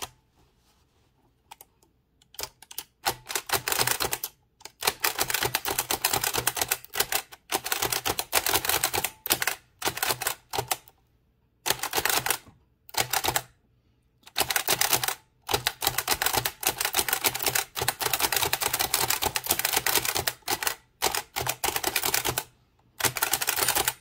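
Antique Bennett typewriter, a small single-element machine with a rotating type cylinder, being typed on fast: quick runs of sharp mechanical keystroke clacks, broken by several short pauses.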